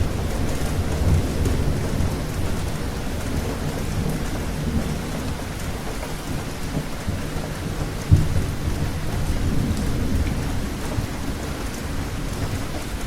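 Steady rain falling, under a low rolling rumble of thunder that swells and fades. There is a sudden louder crack about eight seconds in.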